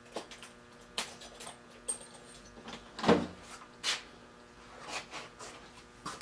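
Rummaging for a center drill: scattered clicks and knocks of small metal tools being handled, with a heavier knock about three seconds in, over a faint steady hum.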